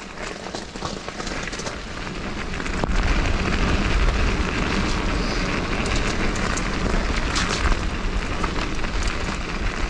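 Mountain bike tyres rolling over a wet gravel trail, a steady crackling hiss, with wind buffeting the camera's microphone. A low rumble swells up about three seconds in and holds, with occasional sharp clicks from the bike.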